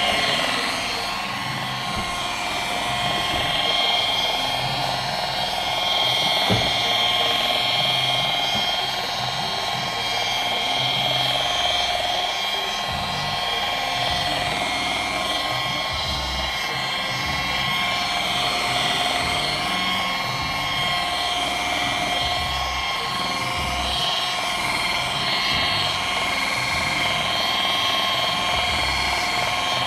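Handheld electric rotary polisher running at a steady speed, its buffing pad spinning against a car's painted bonnet as the paint is buffed: an even motor whine with a high hiss, plus a single light tick about six seconds in.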